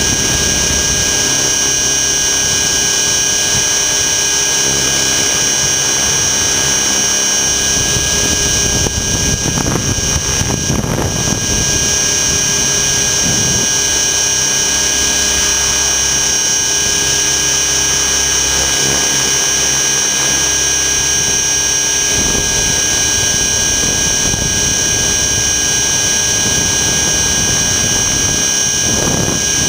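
Align T-Rex 600 ESP electric RC helicopter in flight, heard from a camera mounted on its frame: a steady high whine from the motor and drivetrain over rotor and wind noise, with a gust of rumble about ten seconds in.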